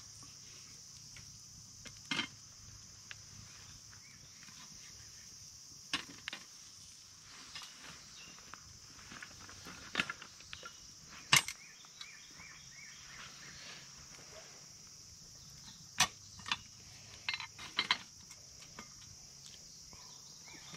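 Steady high chirring of crickets, with scattered sharp clicks and knocks over it, the loudest about midway and again later.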